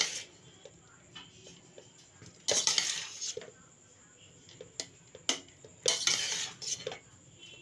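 Fried rice being stirred gently in a pan: two longer scrapes of the utensil against the pan, about two and a half and six seconds in, with a few short clinks between them.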